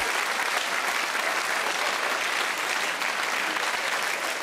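Theatre audience applauding steadily, a dense patter of many hands clapping, with some laughter.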